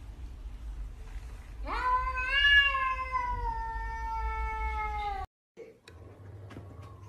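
A cat's single long, drawn-out meow, lasting about three and a half seconds, rising quickly in pitch and then slowly falling.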